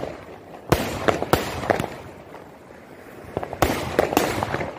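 Pandyan Fireworks 'Zomato' 30-shot sky-shot cake firing: shells bursting in sharp bangs, three within the first two seconds, then a pause, then another cluster near the end.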